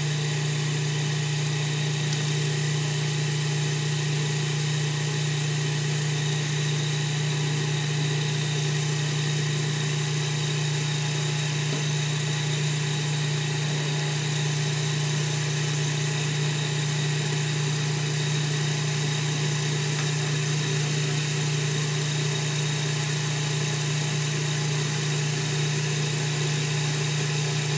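Food processor with a metal blade running continuously, a steady motor hum that holds one speed, as it works chicken flour, fat and water into a dough until the dough forms a ball.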